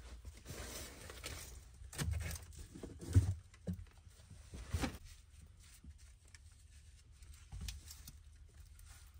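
Rustling and crinkling of paper, rags and loose debris being handled and pulled from a car's floor, in a few short scattered bursts.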